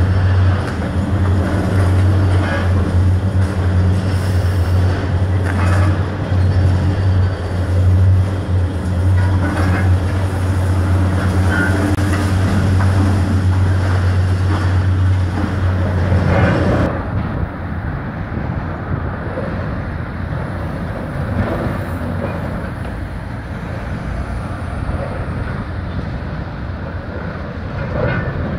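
High-reach demolition excavator's engine running with a steady low hum, with sharp cracks and crunches as its jaws break up the concrete silo wall. About two-thirds of the way in the sound cuts abruptly to a quieter, more distant mix of machine noise and falling debris, without the steady hum.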